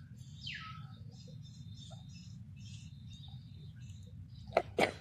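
High-pitched animal chirps, with a quick falling squeal about half a second in, over a steady low background rumble. Two sharp knocks or clicks sound close together near the end.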